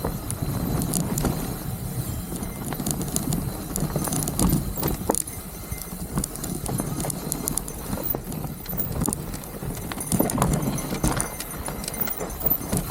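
Mountain bike rolling along a rough dirt trail: tyres crunching over rocks and the bike rattling with many irregular knocks, over a steady low rumble of wind on the microphone.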